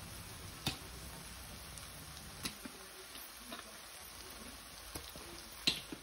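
Faint sizzling of corned beef and vegetables in a frying pan, with a few short squirts and clicks as tomato ketchup is squeezed from a bottle over them; the sharpest click comes near the end.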